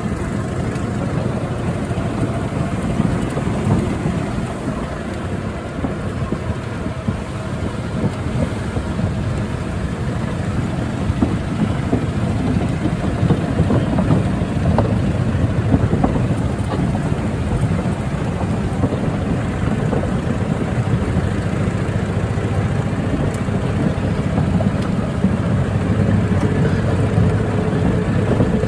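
Steady wind buffeting the phone's microphone: a continuous low rush with no pauses.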